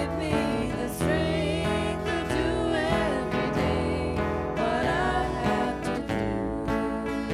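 A live gospel song: several women's voices singing in harmony, holding long, wavering notes, over a strummed acoustic guitar.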